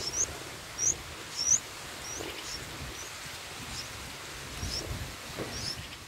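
Bulbul nestlings begging at the nest: short, high chirps repeated about twice a second, over a faint low rustling.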